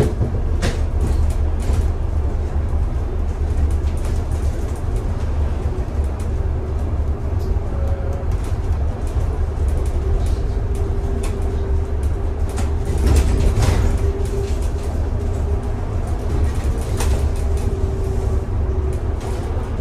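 A bus on the move: a steady low engine and road rumble with a faint steady whine above it, and scattered rattles and knocks throughout. There is a brief louder swell about two-thirds of the way through.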